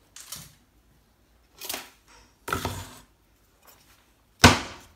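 A few handling knocks and clinks as a steel knife cut from a motorbike brake disc and a wooden board are set down, with the loudest, a sharp knock with a short ring, about four and a half seconds in.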